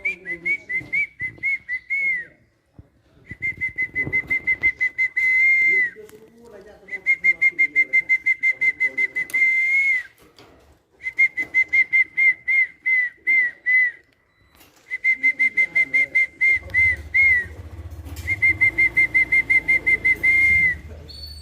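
A high whistled call of rapid repeated notes at one pitch, about eight a second, in six phrases of two to three seconds. Each phrase ends in a brief rise and fall before a short pause.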